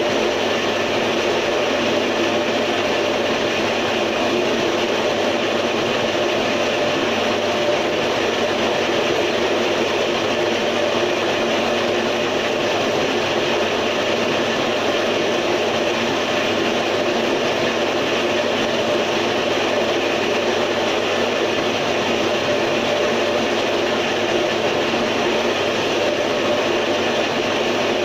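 Homemade tofu-straining machine running steadily: its small motor drives the swinging sieve with a continuous, even mechanical drone.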